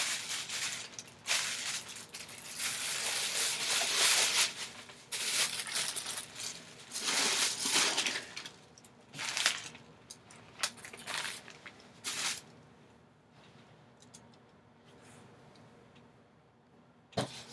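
Plastic bag crinkling and rustling as it is handled, in a run of irregular bursts that die away after about twelve seconds, leaving only faint handling noise.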